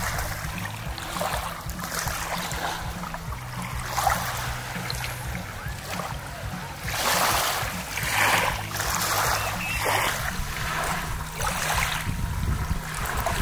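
Motorboat running on a lake: a steady low hum under water rushing and slapping against the hull in repeated surges.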